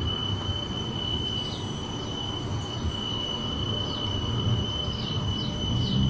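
Alstom Citadis light-rail tram rolling slowly past: a low, even rumble of wheels on rail, with a steady high-pitched tone over it.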